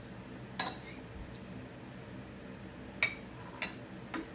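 A toddler eating cake from a plate with a fork and her fingers: four short, sharp clicks and clinks, one about half a second in and three in quick succession near the end, over a faint steady hum.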